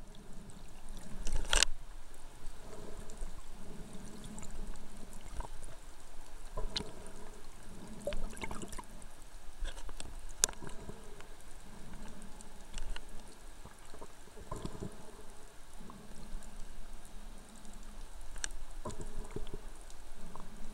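Water heard underwater: muffled sloshing and gurgling, with scattered sharp clicks and ticks and low swells that come and go every second or two.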